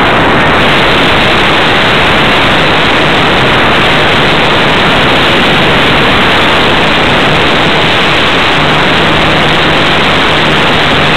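Loud, even hiss on the onboard camera of a radio-controlled model airplane in flight, with a faint low hum joining about eight seconds in.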